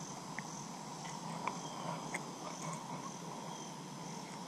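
Steady outdoor chorus of crickets and other insects: a high, continuous trill that swells and fades in even pulses, with a few faint short chirps or clicks.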